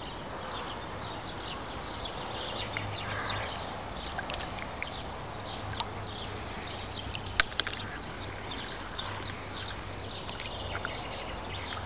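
A hooked catfish splashing at the water's surface: small splashes and clicks scattered over a steady background hiss, with one sharp click about seven seconds in.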